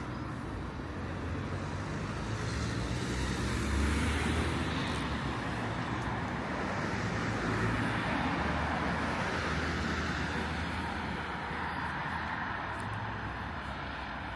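Road traffic: cars passing on a street, the noise swelling about four seconds in and again around eight seconds, over a low engine hum.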